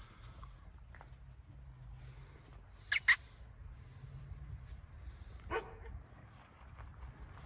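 Dogs barking: two sharp barks in quick succession about three seconds in, then a single lower bark a couple of seconds later, over a low steady background rumble.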